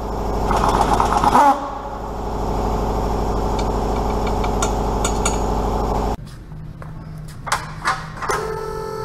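An air tool, taken for an air ratchet, running steadily for about six seconds, loudest in the first second and a half, then cutting off suddenly. A few sharp metal clinks follow.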